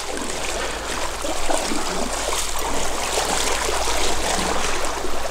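Trout stream water running and splashing close to the microphone, a steady rush dotted with small irregular splashes.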